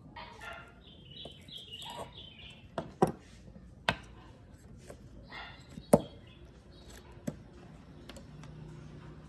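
Sharp taps and clicks of a laminator's circuit board, wires and tools being handled, about five in all, the loudest about three and six seconds in, with birds chirping in the background during the first two seconds.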